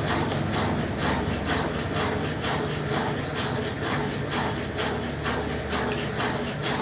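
Brastemp Ative 10 kg top-loading washing machine agitating in its rinse cycle: the agitator swishes the water and clothes back and forth about twice a second over the steady hum of the motor.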